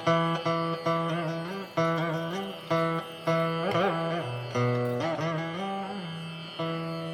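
Background instrumental music: a plucked string instrument in Indian classical style playing a slow melody, its notes sharply plucked and sliding in pitch, with a long ringing note near the end.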